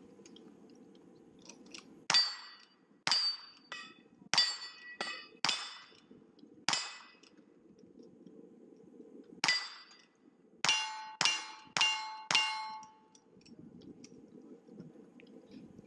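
Rifle shots fired in quick succession at steel targets, each shot followed by the clang and ring of struck steel plates. There is a first run of about seven shots, a pause of a few seconds, then a faster run of about five.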